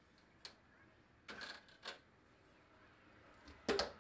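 Sheet-metal side door of a sandblasting cabinet being handled: a faint click and a couple of brief rustles, then a much louder clunk near the end as the door is shut and latched.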